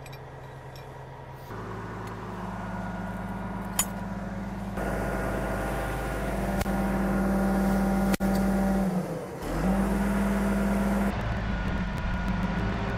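Truck-mounted crane's engine running steadily at raised revs as it hoists a load, its note stepping abruptly up and down a few times.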